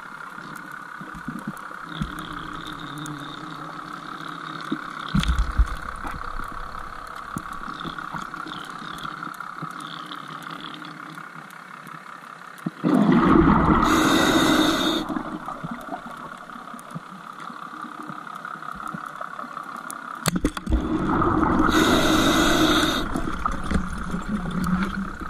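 Underwater, a scuba diver's regulator exhaling twice: each a loud rush of bubbles lasting about two seconds, about eight seconds apart, over a steady underwater hiss, with a few sharp knocks between them.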